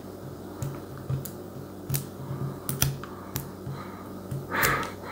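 Light, irregular clicks and taps of kitchen items being handled on a counter while an avocado is readied for cutting, over a steady low hum. Near the end comes a brief scraping rustle.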